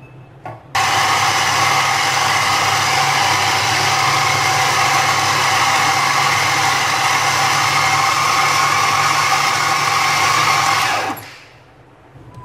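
Electric mini food chopper running, mincing raw chicken breast pieces: a short knock, then the motor starts abruptly about a second in, runs steadily at full speed for about ten seconds and stops near the end.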